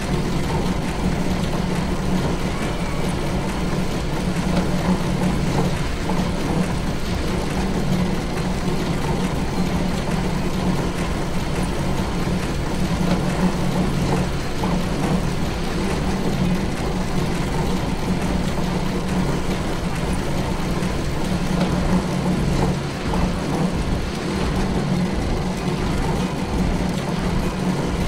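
A vehicle engine running steadily, a continuous low hum that holds level throughout.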